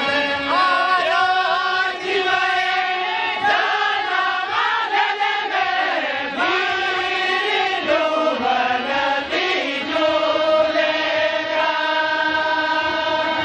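A group of voices singing a lagne song together in a chant-like unison, with long held notes that bend up and down.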